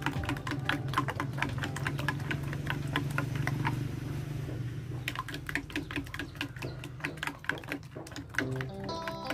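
Metal spoon beating eggs in a ceramic bowl: quick clinking taps against the bowl, about five a second, stopping for about a second halfway through and then starting again.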